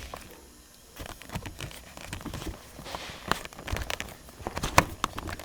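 Scattered clicks and knocks with some rustling: hands working a car's short shifter, setting its adjustable fifth/reverse stop block and trying the lever.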